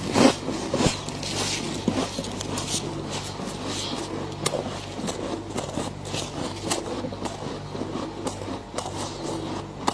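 Thick freezer frost being scraped and crunched: a run of short, gritty scrapes and crackles, busiest in the first second, over a faint steady low hum.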